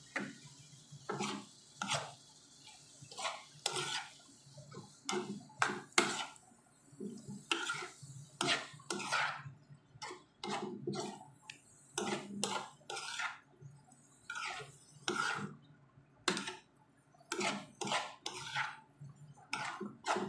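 A cooking utensil scraping and clinking against a nonstick frying pan while stirring and turning sautéed chayote and egg, in irregular strokes about one or two a second.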